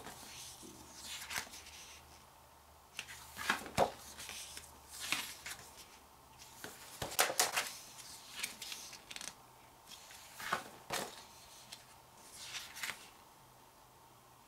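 Photobook pages being turned one after another, a brief papery swish every second or two.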